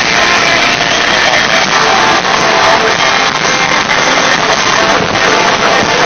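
Metalcore band playing live, with loud, dense electric guitars filling the sound without a break.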